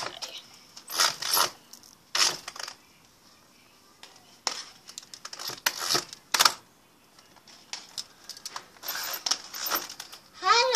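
Roller blind being lowered by its metal bead chain: the chain rattles through the blind's pulley, with the blind shifting, in a series of short bursts with brief pauses between pulls.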